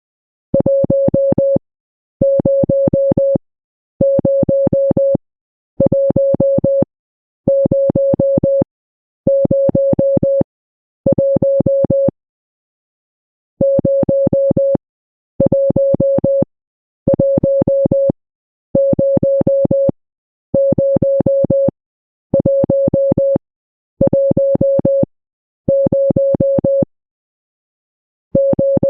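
Morse code sent as a steady mid-pitched electronic tone. It is keyed in evenly spaced bursts of about a second, each a quick run of pulses, roughly one every two seconds, with a longer pause about twelve seconds in.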